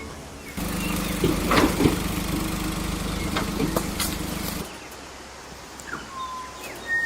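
An engine runs steadily with a low hum for about four seconds, with a few knocks and clatters on top, then cuts off. A few short high chirps follow.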